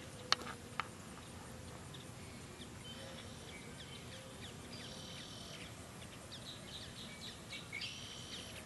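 Outdoor wetland ambience with birds calling: scattered short high chirps and a few brief buzzy calls, busiest around the middle and near the end. Two sharp clicks stand out within the first second.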